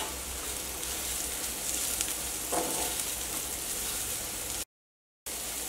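Chopped onions, curry leaves and freshly added turmeric powder sizzling in hot oil in a stainless steel pan as a flat spatula stirs them, the turmeric roasting into the browned onion masala. The sound cuts out completely for about half a second near the end.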